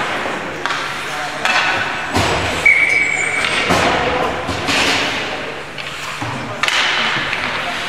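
Indoor ice rink sound during a youth hockey game: indistinct voices from players and spectators echoing in the hall, scattered knocks of sticks, pucks and the boards, and a short whistle blast about three seconds in.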